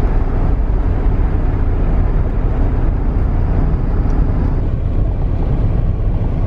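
Steady road and engine noise heard from inside a moving car driving on winter roads, a constant low rumble with no sudden events.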